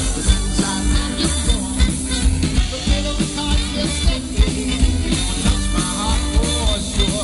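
Live swing music from a small big band, with a steady beat.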